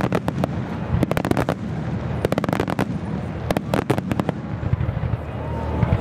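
Fireworks starmine barrage: four quick volleys of sharp bangs and crackle in the first four seconds or so, over a steady low rumble of shells and echoes.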